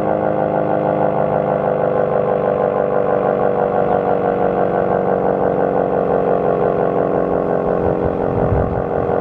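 ACA P-50 outdoor warning siren sounding a steady, loud tone that holds its pitch, as in its alert signal. A low rumble comes in near the end.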